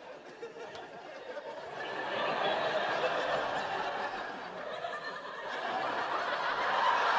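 Studio audience laughing, the laughter swelling about two seconds in, easing off, then building again near the end.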